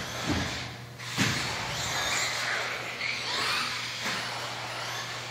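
Radio-controlled car driving on the track, its motor whining up and down in pitch as it speeds up and slows, with a knock about a second in, over a steady low hum.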